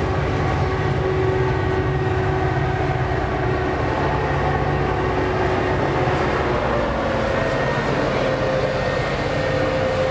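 Metra commuter train of bilevel passenger cars rolling past, its diesel locomotive running with a steady low hum.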